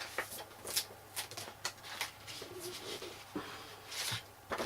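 Paper being handled on a craft desk: a run of short rustles and light taps as small cut paper masks are pulled apart and moved about.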